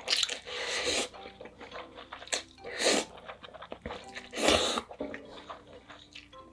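A person slurping spicy ramyeon noodles and broth: three loud slurps, the first about a second long, another around the middle and one more a little later, with small chewing and mouth clicks in between.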